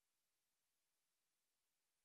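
Silence: an empty soundtrack with only an extremely faint, even hiss.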